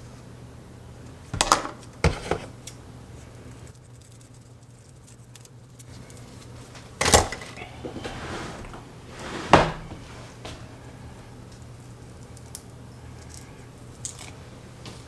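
Clicks, rattles and rustling from hands handling a small plastic remote and Velcro strips, in a few separate bursts, over a steady low hum.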